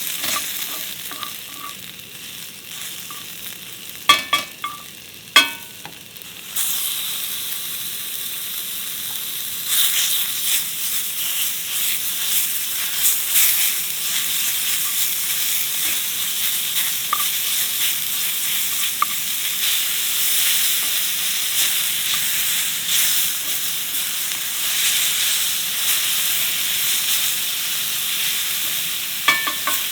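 Food sizzling and crackling as it fries in a pan, with a few ringing metal clinks of a utensil about four to five seconds in; the sizzling grows louder about six and a half seconds in and carries on steadily.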